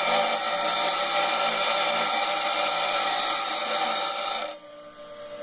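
Bench grinder wheel grinding down the outside of a metal L-shaped wrench, throwing sparks: a loud, steady grinding whine. It stops suddenly about four and a half seconds in, leaving a quieter steady hum.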